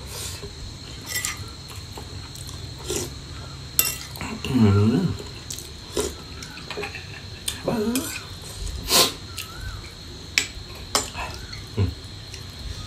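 Metal spoon clinking and scraping on a ceramic plate in scattered sharp clicks while a meal of rice and boiled frogs is eaten, with a short murmur from the eater a little over a third of the way in.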